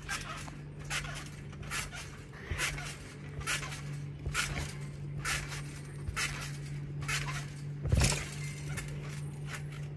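Trampoline mat and springs sounding with each bounce, a stroke about once a second. About eight seconds in, a louder thud as the jumper lands on her back on the mat after a flip.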